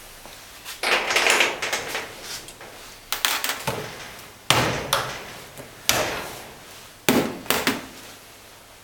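Steel parts of a diesel injector clamping device being handled on a steel workbench: a scraping rattle about a second in, then a series of sharp metal clanks and knocks as plates and tools are picked up and set down.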